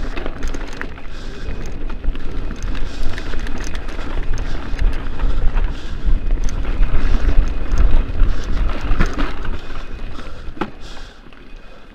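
Wind buffeting the handlebar-mounted camera's microphone as a mountain bike descends a rocky gravel trail, with many clicks and rattles from the tyres and bike over loose stones. It eases off near the end.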